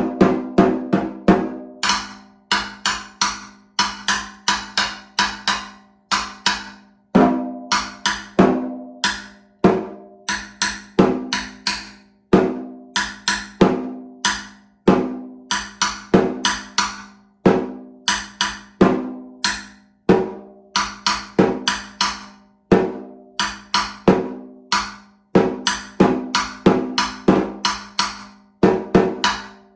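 Solo snare drum played with sticks: a rhythmic snare solo of sharp single strokes and quick clusters of strokes, each leaving a short ringing tone from the drum.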